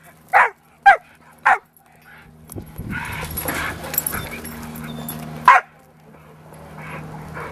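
A dog barking: three short barks in quick succession, then a fourth bark about five and a half seconds in, with a low steady hum underneath.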